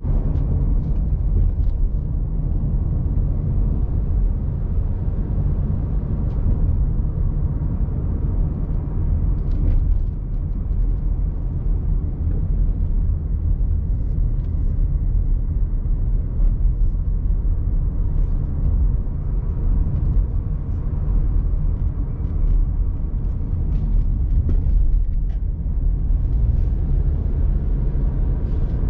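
Steady low rumble with a few faint clicks, the kind heard from a moving vehicle or wind on the microphone.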